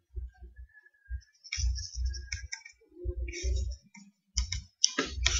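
Computer mouse clicking several times, opening a slide show's right-click pen menu, over repeated low thumps. Near the end a louder scratchy rubbing starts.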